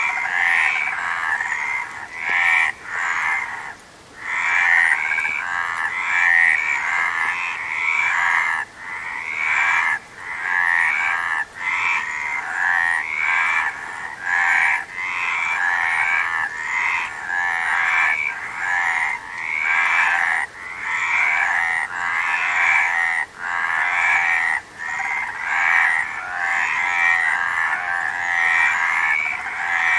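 A chorus of many frogs croaking together, their pulsed calls overlapping almost without a break, with a few brief lulls.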